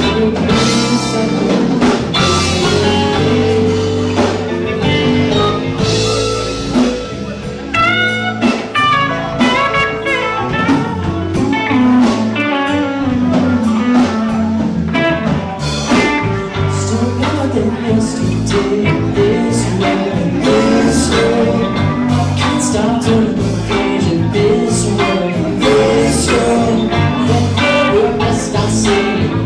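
Rock band playing live: electric guitars, electric bass and drum kit in a bluesy jam.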